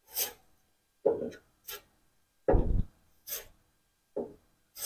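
Short scraping strokes of a spreader working body filler onto a car body panel, about seven in a row with pauses between them. The heaviest stroke, about halfway through, comes with a dull thud.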